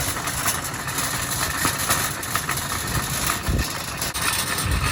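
Shopping cart rolling fast downhill on pavement, its wheels and wire basket giving a steady rattling rumble.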